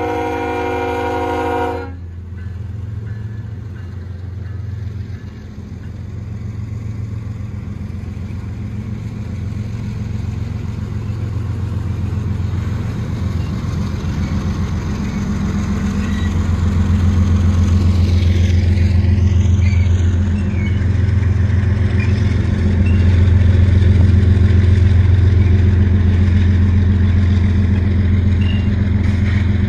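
Diesel locomotive horn sounding a chord of several notes, cutting off about two seconds in, then the steady low rumble of the Union Pacific freight train's diesel locomotives and cars rolling past, growing louder.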